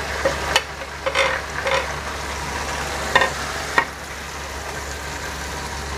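Sliced onions frying in hot oil in a metal kadai, sizzling steadily. A perforated metal ladle stirs them, scraping and clinking against the pan a handful of times in the first four seconds.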